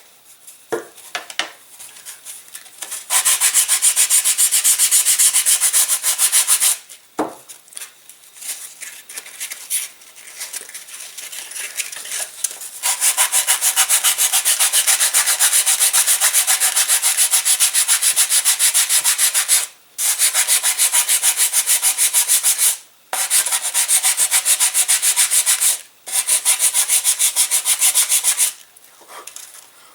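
Sandpaper rubbing back and forth over a balsa model-glider wing in fast, even strokes, smoothing down a glued plywood reinforcement patch. Long runs of rapid scraping come with a few short pauses, and there are softer, slower stretches between about 1 and 13 seconds in.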